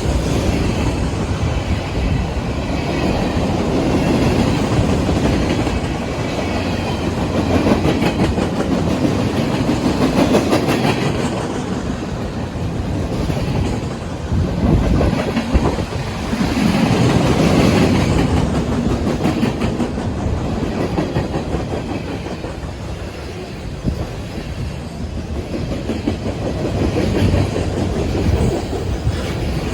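Cars of a manifest freight train rolling past, steel wheels clattering over the rail joints, the noise swelling and easing as the cars go by.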